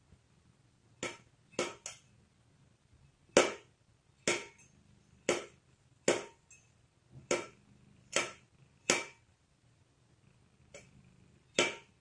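A cat knocking its empty metal food bowl against the floor, about a dozen sharp clanks with a short ring after each, spaced unevenly: it is begging to be fed.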